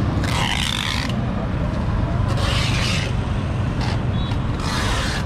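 A steady low rumble of street noise, with three short hissing scrapes about two seconds apart.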